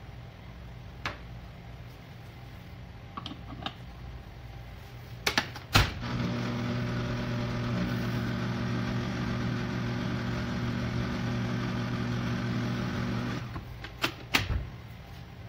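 Electric stand mixer with a dough hook: a couple of sharp clicks as the head is lowered and locked, then the motor runs with a steady hum for about seven seconds as the hook stirs the dry flour, sugar and salt, and stops abruptly. A few more clicks follow as the head is handled.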